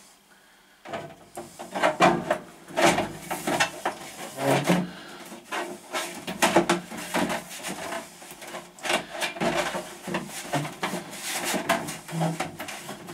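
A white plastic fan trim ring being pushed and worked up into a wooden ceiling opening: irregular scraping, rubbing and knocking of plastic against wood, starting about a second in.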